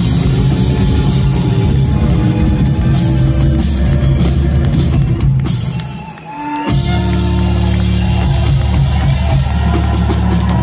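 Live rock band of acoustic guitar, bass, drum kit and fiddle playing loudly. About six seconds in the band drops out briefly, then comes back in on a long held chord with the drums.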